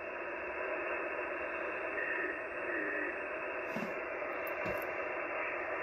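Icom HF transceiver's speaker giving steady band-noise hiss as it is tuned across the 75-metre phone band with no signals, with brief faint whistles about two and three seconds in. Two soft clicks come near the end.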